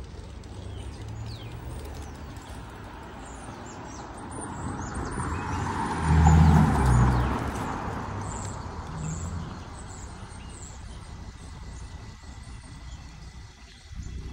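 A car passes on the street, its noise swelling to a peak about halfway through and then fading away. Small birds chirp over the traffic.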